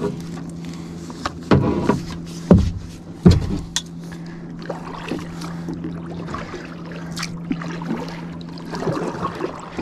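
A fishing rod and reel being handled in a kayak as line is let out: a few knocks against the hull and scattered light clicks over a steady low hum.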